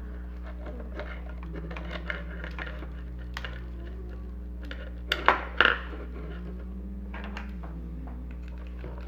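Small hard clicks and clinks of screws and plastic toy parts being handled and fitted together, with two louder sharp knocks a little past the middle.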